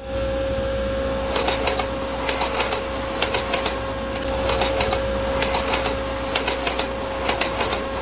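Sound effect of a tracked construction machine working: a steady motor whine over a low hum, with irregular clusters of mechanical clicks and clanks.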